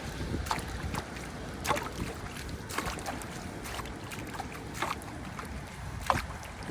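Low rumble of wind on the microphone over flood water, with a sharp knock or scrape about every second or so.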